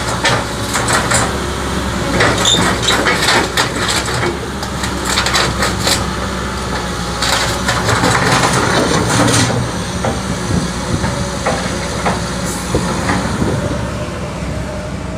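Cat 312D excavator's diesel engine running steadily, with irregular metallic clanks and knocks over it, thickest in the first two-thirds and sparser near the end.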